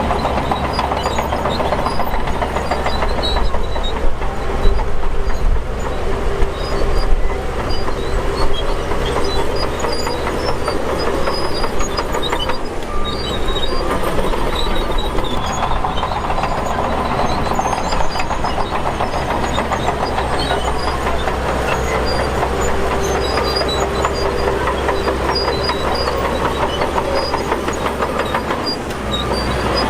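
Shantui DH17 crawler bulldozer's diesel engine running under load, with the steady clanking of its steel tracks as it pushes dirt. It gets louder in spells during the first several seconds.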